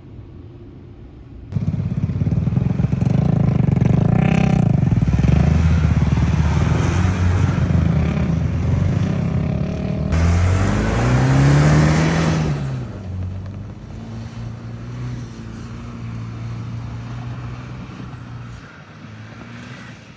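Vehicle engine driving hard on sand, revving up and down with a rise and fall in pitch about ten to twelve seconds in, then running steadier and quieter.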